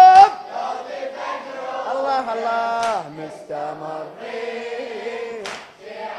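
Men's voices chanting a Shia Muharram latmiya in Arabic, held notes gliding up and down, opening with a loud shouted call from the lead reciter.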